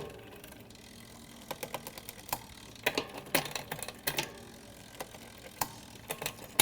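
Bicycle rear gears being shifted down to the smallest cog: a series of irregular sharp clicks from the shifter and the chain stepping across the cassette.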